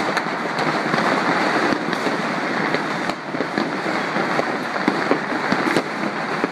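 Many fireworks and firecrackers going off at once in the distance, merging into a continuous crackling wash of pops with a few sharper bangs standing out.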